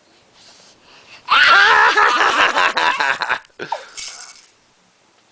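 A young child laughing hard for about two seconds, a run of high, wavering giggles, then a shorter breathy laugh.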